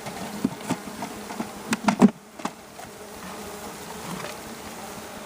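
Honeybees buzzing steadily around an open hive, with several sharp wooden knocks and clicks in the first two seconds as frames are set into the hive box.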